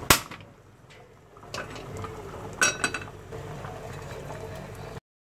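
Metal pans and utensils knocking on a gas stove. There is a sharp click near the start, then a cluster of ringing metallic knocks about two and a half seconds in, over a low steady background noise that cuts off abruptly near the end.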